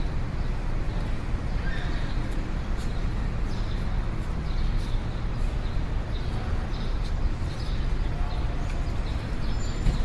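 City street ambience: a steady low rumble of traffic, with scattered short clicks and faint distant voices.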